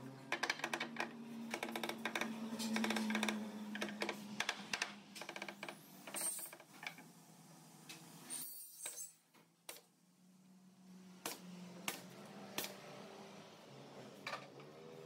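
Rapid light clicks and taps of small hard objects being handled, packed closely for the first few seconds and then only now and then, over a faint steady low hum.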